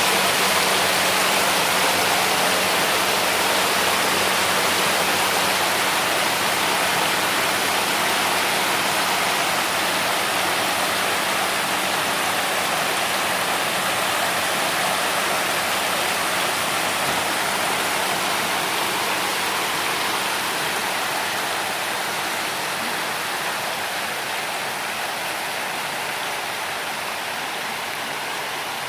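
Water pouring down an artificial rock waterfall, a steady rush that eases slightly toward the end.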